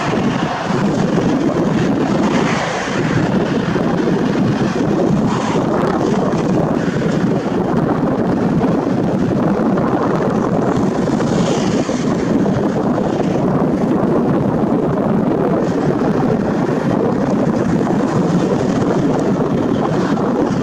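Airbus A320-214 airliner's CFM56 jet engines running as it rolls out along the runway after touchdown: a steady, loud rushing noise that holds throughout.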